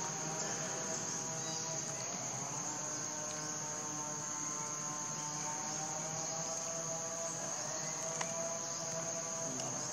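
Insects droning steadily in one high, unbroken tone.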